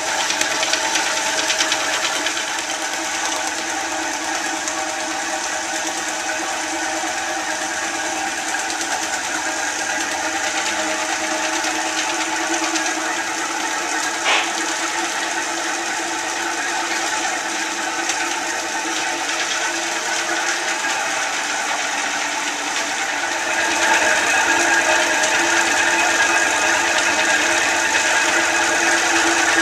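Rose Mfg. 20-inch Rociprolap vibratory flat lap running steadily while it laps a load of rock specimens in grit slurry. There is a single sharp click near the middle, and the machine gets louder about three-quarters of the way through.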